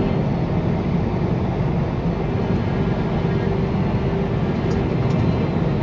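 Semi truck on the road: a steady engine drone with road and tire noise.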